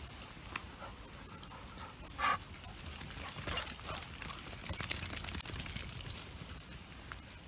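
Footsteps and rustling along a wet, muddy footpath through long grass, made up of irregular short clicks. A short, sharper sound comes about two seconds in, and a sharp knock about three and a half seconds in.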